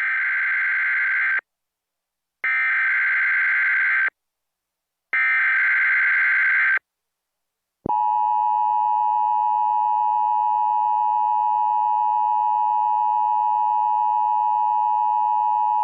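Emergency Alert System SAME header: three harsh, screechy digital data bursts of about a second and a half each, a second apart, followed by the steady EAS attention tone held for about eight seconds, signalling a NOAA Weather Radio alert.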